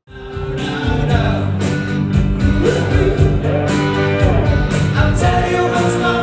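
Rock song with singing, guitar and a steady drum beat, coming in suddenly at full level.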